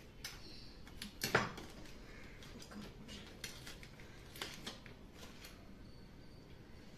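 Light, scattered clinks and clicks of a spoon against a plate of rice and crab curry, the loudest about a second in, then a few fainter ones.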